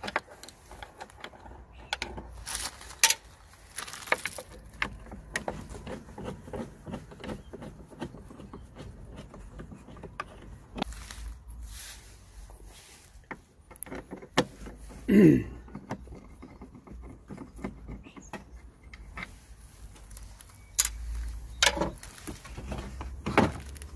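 Scattered light metallic clicks and clinks of a T20 Torx screwdriver undoing screws and knocking against the plastic air inlet box as it is worked loose, with one short falling squeak about fifteen seconds in.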